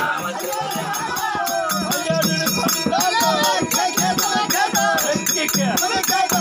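Live folk-drama music: percussion keeping a quick, steady beat with low drum strokes, and a wavering melody line above it.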